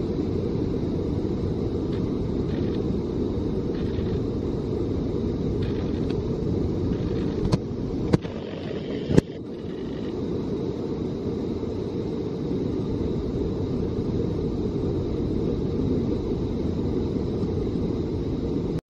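Steady low rumbling noise, with a few sharp clicks about seven to nine seconds in.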